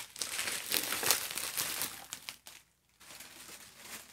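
Plastic bubble wrap crinkling and rustling as it is pulled off a boxed vinyl figure, with many small crackles; it dies down about two and a half seconds in, leaving only faint handling.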